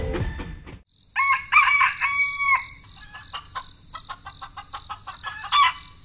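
A rooster crowing once, about a second in, over a steady high chirring of crickets with scattered short chirps and clicks. Music cuts off in the first second.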